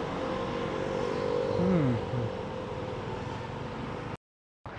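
Motorcycle engine running steadily with traffic and road noise, and its pitch falls briefly about two seconds in as the bike slows. The sound cuts off suddenly near the end.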